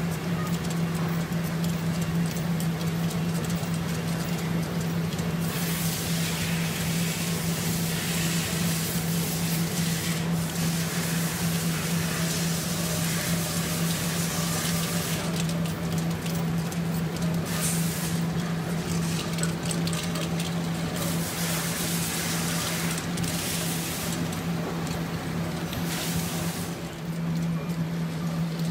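Resina NRC-40 inline capping machine running empty small bottles through its spindle capping wheels: a steady low hum, with long spells of hissing that come and go.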